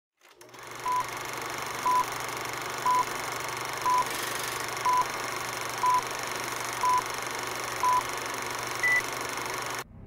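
Film-leader countdown sound effect: eight short beeps at one pitch, a second apart, then a ninth, higher beep, over a steady hiss and low hum that cuts off near the end.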